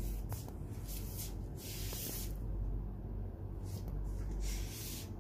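Several short bursts of hissing, rustling noise over a steady low rumble. The longest burst comes about two seconds in and another comes near the end.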